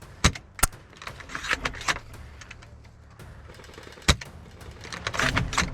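Airsoft gunfire, with BBs striking the wooden planks of a tower. There are sharp cracks just after the start, again about half a second later and about four seconds in, with bursts of rapid ticking in between and near the end.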